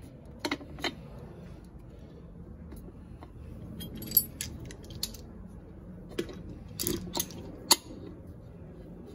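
Scattered sharp metallic clicks and clinks, one standing out about four seconds in and the loudest near the end: the two steel shell halves of a Valiant brake booster being twisted and nudged into alignment while held in a bar clamp.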